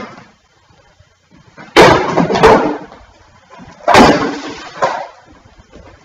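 Two loud bangs, about two seconds apart, each with a short clattering tail of about half a second to a second.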